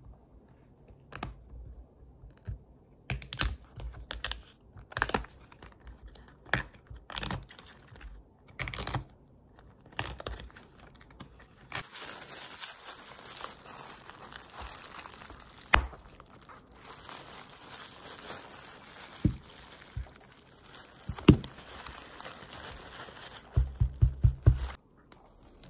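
Banana flower bracts being peeled off by hand, a string of crisp snaps and tearing clicks. About halfway through this gives way to a steady crinkling rustle of plastic gloves handling the flower, with a few sharp clicks. Near the end comes a quick run of about six low knocks on the table.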